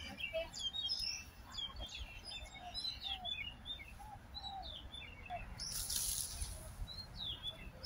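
Small birds chirping and calling, many short overlapping chirps and whistles. About six seconds in there is a brief hiss lasting under a second.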